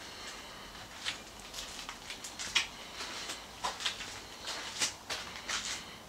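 Footsteps on a gritty concrete floor: a run of irregular light clicks and scuffs.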